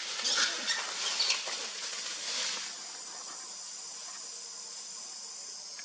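Outdoor insect chorus: a steady high-pitched drone typical of cicadas or crickets, taking over from hissy noise with a few short high squeaks about two to three seconds in.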